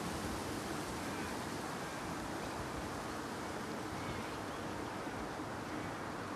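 Steady outdoor wind noise, an even rushing with a faint low hum underneath.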